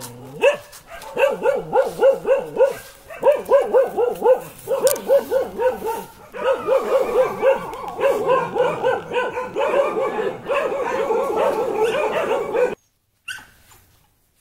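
A puppy yapping in fast runs of high barks, about four or five a second, with short breaks between runs, stopping abruptly near the end.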